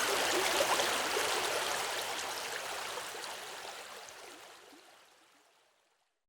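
Small river burbling and splashing over stones, fading out to silence over the last few seconds.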